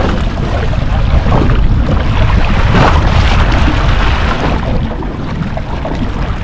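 Wind buffeting the microphone over the wash of sea water against a small aluminium boat, a loud, uneven rumble.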